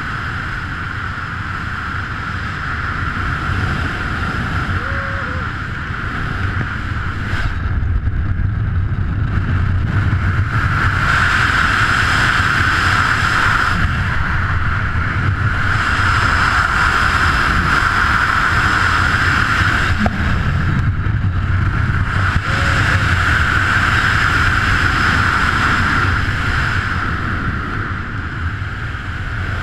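Rushing wind buffeting the camera microphone during fast speed-flying flight. It swells in long surges every few seconds as the airspeed changes.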